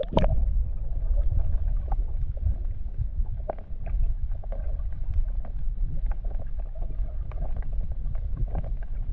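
A splash as the camera plunges under the water at the very start, then muffled underwater sound as heard through a submerged camera: a steady low rumble with scattered faint clicks and crackles.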